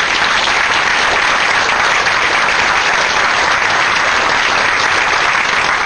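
Audience applauding, a steady sustained round of clapping at the close of a talk.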